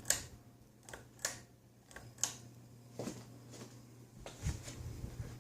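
Harbor Breeze Concora ceiling fan running on high: a steady low motor hum with irregular sharp ticks, about eight in five seconds. The owner likens the noise to a cricket and links it to the fan's wobble.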